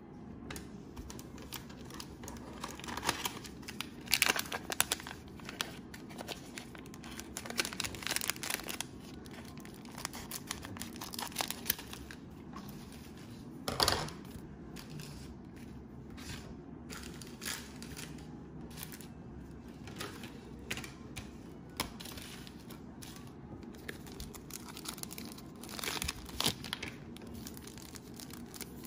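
Cellophane wrapper of a Panini Prizm trading-card cello pack crinkling and tearing as it is opened, with cards being handled. The rustles come in short clusters, the sharpest about 14 seconds in.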